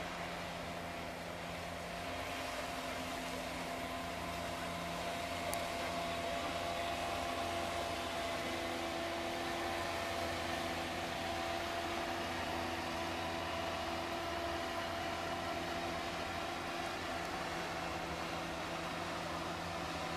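Steady engine drone with a constant hiss, its pitches holding nearly level throughout; one faint, short high tick about five and a half seconds in.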